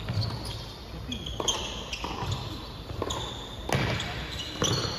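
Tennis rackets striking the ball in a quick doubles rally at the net, several sharp hits less than a second apart, ringing in a large indoor hall.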